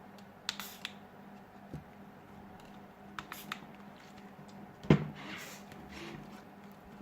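Small clicks and taps of tools against a smartphone being taken apart, with one louder knock about five seconds in, followed by a brief scraping hiss.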